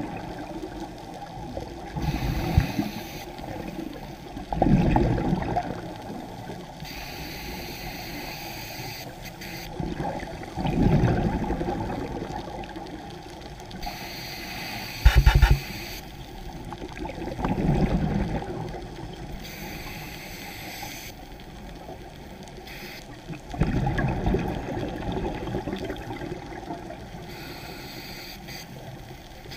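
Scuba regulator breathing underwater: a rumbling burst of exhaled bubbles every few seconds, with quieter hiss between breaths. One short, louder burst about halfway through.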